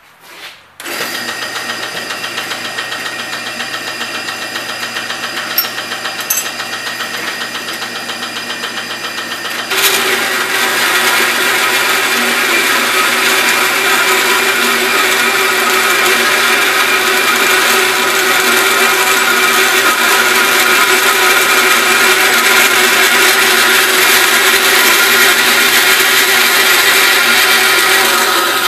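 A 14-inch bandsaw converted from wood to metal cutting, with an added shaft and pulleys slowing the blade to about 200 feet per minute, switches on just under a second in and runs with a steady, noisy mechanical whine. About ten seconds in, its 10-tooth bimetal blade starts cutting 1/8-inch mild steel, and the sound becomes louder and grittier for the rest of the cut.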